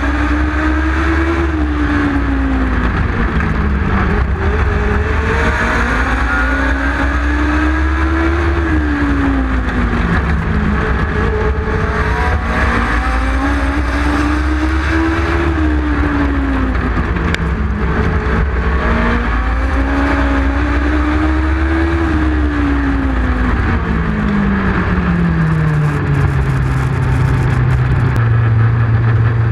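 Onboard sound of a Legends race car's Yamaha four-cylinder motorcycle engine at racing speed, with many other cars in the pack around it. The engine pitch rises and falls over and over as it pulls and then lifts every few seconds. Near the end it drops to a lower, steady drone as the car slows with the pack.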